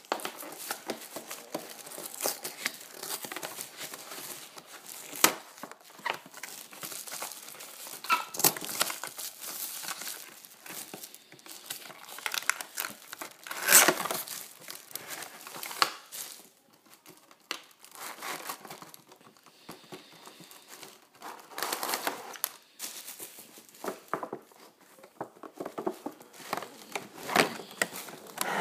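Cardboard and plastic toy packaging being opened by hand: irregular crinkling and rustling with sharp crackles and tearing, loudest about halfway through.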